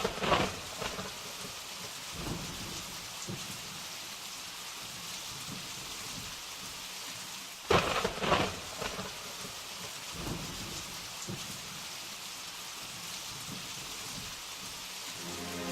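Steady rain falling, with two sharp cracks of thunder, one at the start and one about eight seconds in, each trailing off in rumbles.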